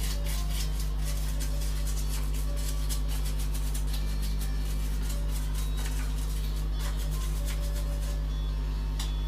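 Frequent light clicks and taps of small wooden pieces being handled and fitted into a wooden frame, over a steady low hum.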